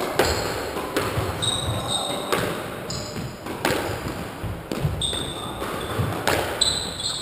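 Squash rally: sharp cracks of the ball off rackets and walls about once a second, with court shoes squeaking briefly on the wooden floor between shots.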